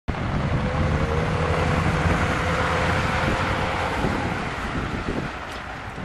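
A 1956 Ford Thunderbird's 312 cubic-inch Y-block V8 driving by on the street, its steady engine note fading away near the end, with wind noise on the microphone.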